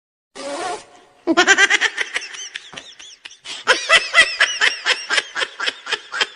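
A laughing sound effect: a short breath in, then a fast run of high-pitched laughs, a brief pause a little after the midpoint, and a second, longer run of rapid laughs.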